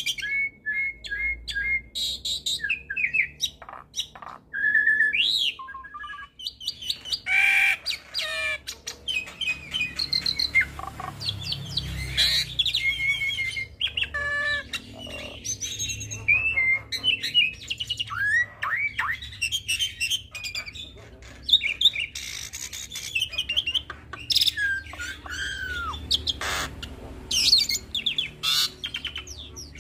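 Hybrid starling (Nias hill myna crossed with Asian pied starling) singing a long, varied song of clear whistles, falling slurred notes, harsh squawks and rapid clicking chatter, full of mimicked calls of other birds.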